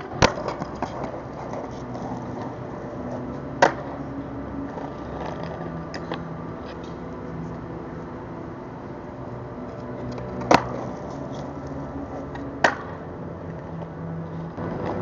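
Skateboard cracking on concrete steps and brick paving: four sharp clacks of the board popping and landing, one at the very start, one about three and a half seconds in, and two about two seconds apart later on, over a steady low city hum.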